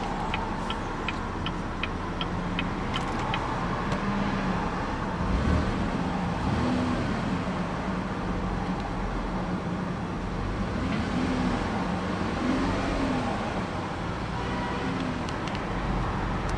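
2015 Chevrolet Impala's 3.6-litre V6 idling, heard from inside the cabin, given a few light revs so that the engine note rises and falls several times in the second half. A light ticking, about three ticks a second, runs for the first three seconds or so.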